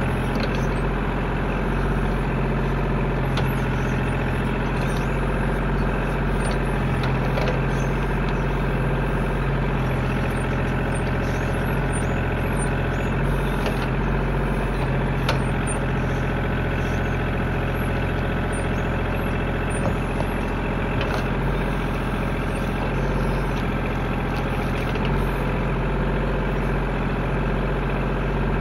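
Tractor engine running at a steady speed, with no rise or fall in pitch and a few faint clicks over it.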